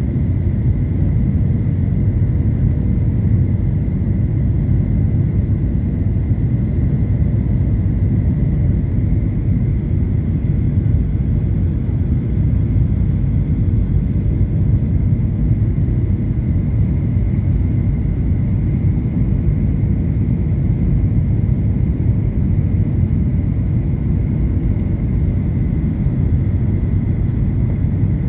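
Passenger jet airliner's steady low rumble of engines and air, with a thin steady whine above it.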